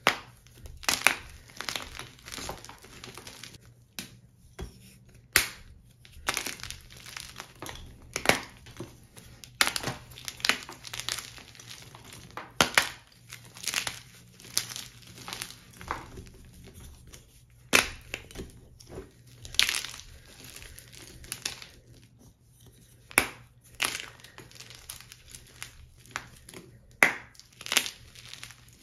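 Hands crushing blocks of plain gym chalk over a tub of loose chalk powder, the chalk crunching and crumbling as it breaks. Sharp, loud crunches come irregularly, every second or two, with softer gritty crumbling between them.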